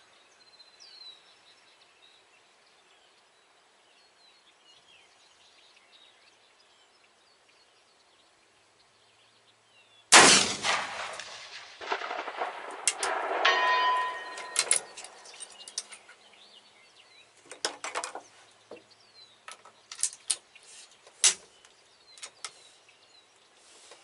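A single .45-70 rifle shot about ten seconds in, loud and trailing off. About three seconds later comes a short metallic ringing. Then a few sharp metallic clicks as the rifle's action is worked.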